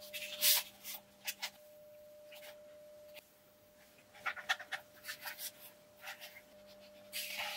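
Scattered short clicks and rustles of a plastic power-tool battery case being handled and screwed shut, with its release latch pressed, over a faint steady hum.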